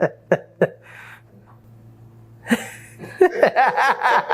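Men laughing in short bursts. After about a second there is a lull with only a faint low hum, and laughter and chatter start up again about two and a half seconds in.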